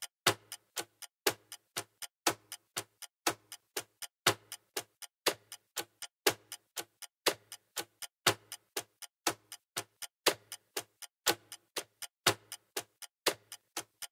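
Clock-ticking sound effect for a countdown timer: sharp ticks, about three a second, repeating in a steady one-second pattern with the first tick of each group loudest.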